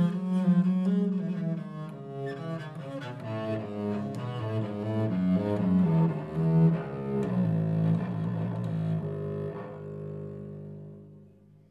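Seven-string bass viol (viola da gamba), built on the M. Hoffmann 1688 model, bowed in a solo phrase of changing notes in its low and middle range. The phrase ends on a long held note that fades away near the end.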